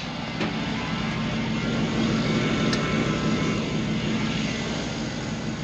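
Vehicle engine idling steadily, with two faint clicks.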